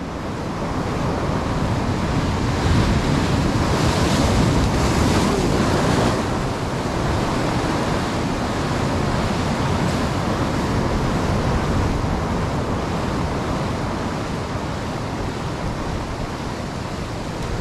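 Ocean surf washing over a rocky shore, a continuous rush with wind on the microphone. It swells about three to six seconds in, then eases off slowly.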